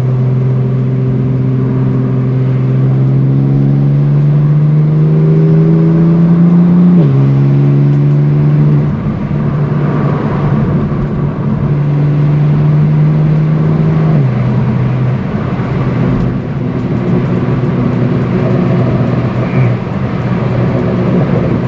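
BMW M4 F82's S55 twin-turbo inline-six with a REMUS exhaust, heard from inside the cabin while accelerating. Its pitch climbs for about seven seconds, drops at an upshift, climbs again and drops at a second upshift about fourteen seconds in, then runs on at a steadier pitch.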